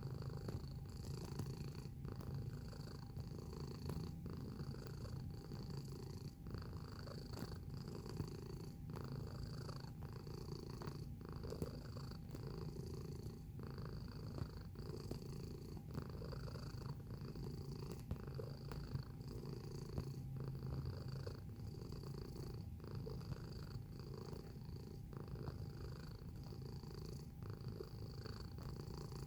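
Domestic cat purring steadily, rising and falling with its breathing about every second and a half.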